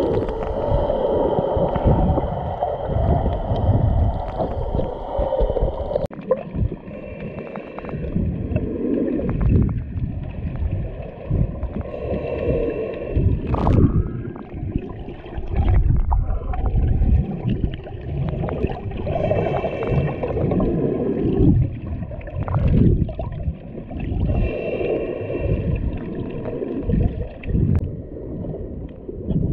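Water heard underwater through a camera's waterproof housing: an uneven, muffled rushing and gurgling with low rumbles as the camera moves through the water. A faint high tone comes and goes about every five seconds.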